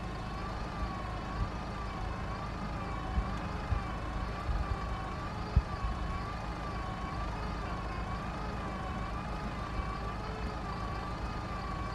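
Stuck pickup truck's engine held at high revs under load while it is pulled out of deep snow: a steady whine that wavers gently up and down about every two-thirds of a second, over a low rumble, with a few small knocks. The strain is taken to have burned the clutch pressure plate.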